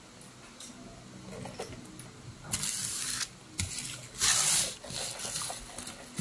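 Bubble milk tea slurped through a wide straw, with two loud rushing slurps about two and a half and four and a half seconds in, the second the loudest, and small wet clicks of chewing tapioca pearls between them.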